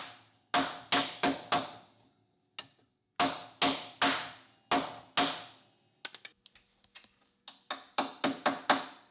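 Hammer blows on a seized, rusted bolt being driven out, each strike ringing metallically. They come in three quick runs of about four, five and six blows, with a few lighter taps between the second and third runs.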